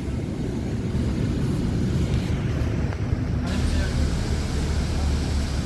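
Nova Bus LFS city bus heard from inside while riding: a steady low rumble of the drivetrain mixed with road noise.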